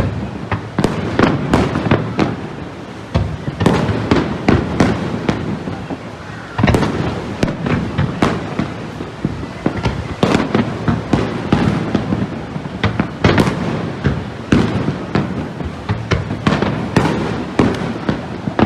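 Fireworks display: a dense, continuous barrage of shell bursts and crackling bangs, many per second, over a rolling rumble.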